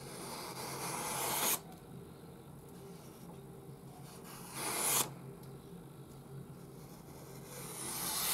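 A sheet of paper being sliced by a sharp knife blade, a sharpness test. There are three rasping cuts; each grows louder as the edge runs through, then stops abruptly as the blade comes out of the paper.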